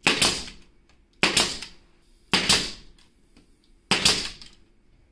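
Pneumatic trim nailer firing four times, about a second apart, driving nails through baseboard trim into the wall; each shot is a sharp crack with a short tail.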